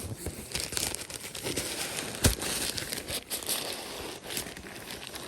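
Crinkling and rustling of a torn shipping package being handled and turned, with small clicks and one sharp knock about two seconds in.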